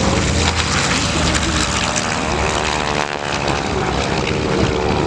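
Radial-engine T-6 Texan warbird making a low pass, its propeller and engine note shifting in pitch about halfway through as it goes by.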